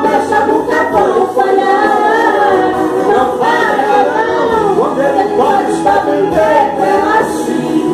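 Several voices singing a Portuguese Pentecostal gospel song together.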